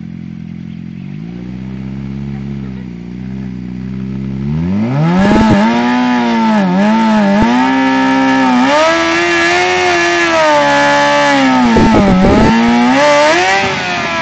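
Suzuki sport bike engine revving from a low idle, climbing steeply about four seconds in and then held at high revs with a few brief dips and surges, as in a stationary burnout with the rear tyre spinning on the pavement.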